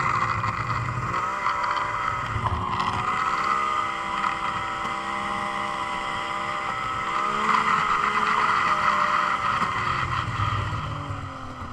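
Yamaha SXR 600 triple-cylinder two-stroke snowmobile engine running at low speed. The engine note rises about a second in, holds steady, eases back around seven seconds, and drops toward idle near the end as the sled slows.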